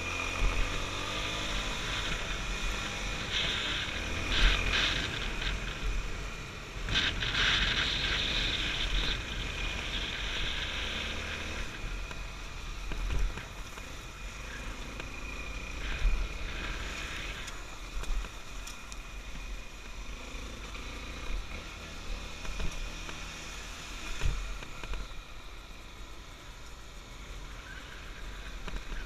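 Honda XR250 Tornado dirt bike's single-cylinder four-stroke engine running as the bike is ridden along a rough dirt track, with a steady rumble and hiss and a few short knocks.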